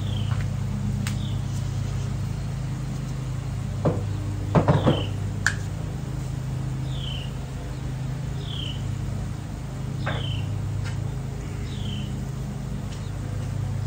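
Battered bowfin deep-frying in a cast iron pot of hot shortening, sizzling and bubbling steadily over a low, even hum. A short falling chirp, like a bird's, repeats about every second and a half, and a few louder brief sounds stand out about four to five seconds in.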